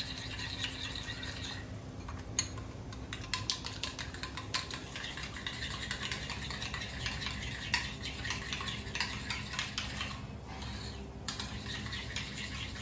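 Spoon stirring a creamy pink sauce in a glass bowl, clinking and scraping against the glass in quick uneven strokes, with short lulls about two seconds in and again near ten seconds.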